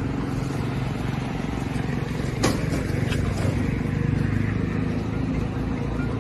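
A vehicle engine running steadily at idle. About two and a half seconds in there is a sharp knock, and a lighter one follows soon after, as plastic cargo trunks are handled and set down.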